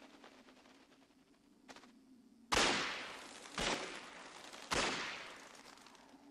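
Three loud, sharp bangs about a second apart, each ringing away with a long echoing tail. Beneath them runs a faint steady hum.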